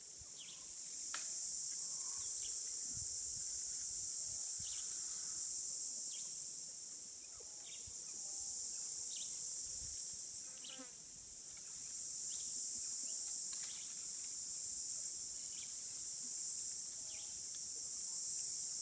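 Insect chorus: a high, steady drone that swells and fades every few seconds, with faint short chirps scattered through it.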